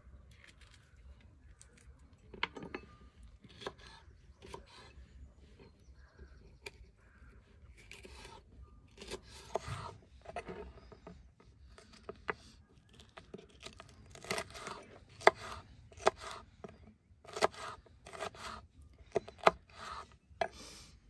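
Kitchen knife slicing a sweet pepper into strips on a wooden cutting board: irregular crisp cuts and taps of the blade on the wood, louder and more frequent in the second half.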